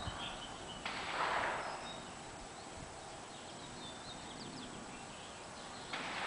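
Quiet outdoor ambience with faint bird chirps, and one sudden sharp noise about a second in that fades away over about a second.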